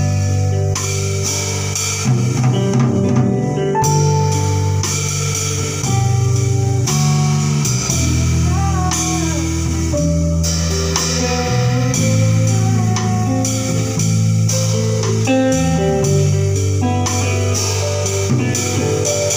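A live band playing an instrumental passage: hollow-body archtop guitar over bass guitar and drum kit, with one bent, gliding guitar note about halfway through.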